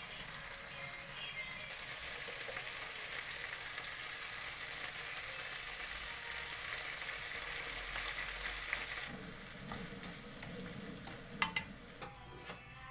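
Food sizzling in oil in a frying pan, stirred and turned with chopsticks; the sizzle is strongest from about two seconds in and dies down after about nine seconds. Near the end a single sharp clack.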